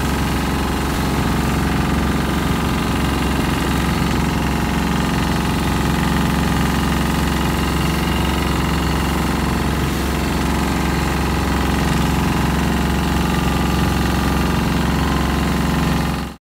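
Longtail boat engine running steadily under way: a loud, even drone with a deep rumble and a steady hiss above it. It cuts off abruptly near the end.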